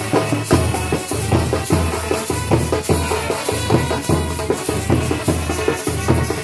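Indian brass band playing: trumpets and baritone horns over a steady beat of drum strikes about twice a second.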